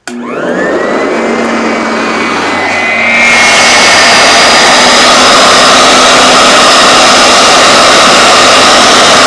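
Sanitaire SC899 commercial upright vacuum cleaner switched on: its motor spins up with a rising whine, then runs steadily with a high whine over a loud rush of air. About three seconds in it gets louder and hissier.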